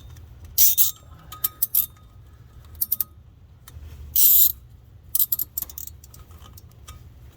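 Plastic zip ties being threaded and pulled tight: several short, high-pitched zips with small clicks, the two loudest about a second in and about four seconds in, over a low steady rumble.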